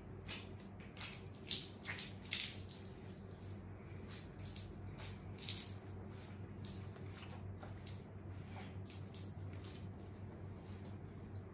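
Water splashing and dripping in short, irregular spurts as soaked cotton sweatpants are squeezed and wrung out by hand, over a steady low hum.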